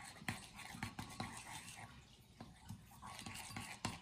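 Wooden stick stirring thick, sticky glue slime in a mixing bowl: faint wet scraping with a few light knocks of the stick against the bowl.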